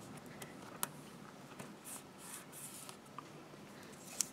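Faint rubbing and rustling of double-sided tape being pressed along the edge of a paper strip, with a few small sharp clicks.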